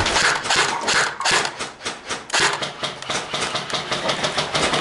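Airsoft gunfire: a run of sharp clacking shots, coming irregularly at first and then several a second in the second half.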